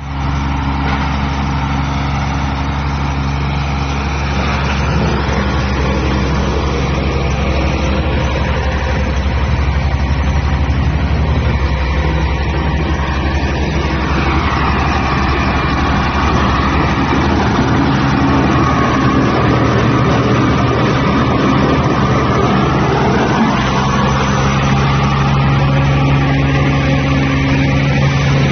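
Diesel engine of a mobile wood chipper shredder running steadily, its note shifting slightly a couple of times.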